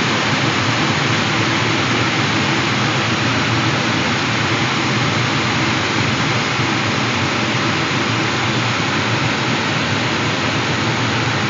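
Steady rush of air streaming past a glider's canopy, heard from inside the cockpit.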